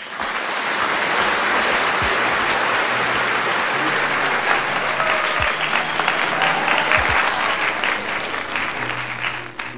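Dense crowd applause that starts and stops abruptly, laid in as an applause sound effect, over soft background guitar music.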